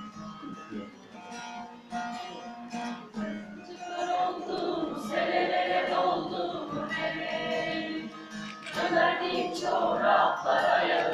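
Acoustic guitar playing, with a group of voices singing along from about four seconds in.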